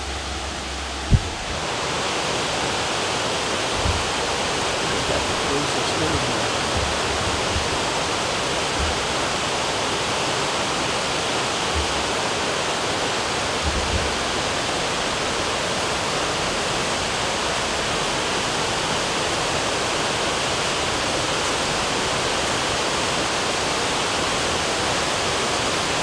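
Steady rush of a waterfall heard through the forest, with one knock about a second in as the handheld camera is turned around.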